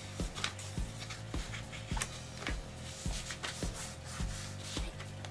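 Sheet of paper being folded and the crease rubbed flat by hand against a board, with the hands sliding over the paper, under quiet background music with a steady beat.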